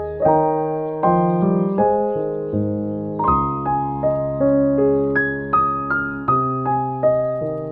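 Background piano music: a gentle piece with a new note or chord struck about every half second, each ringing and fading away.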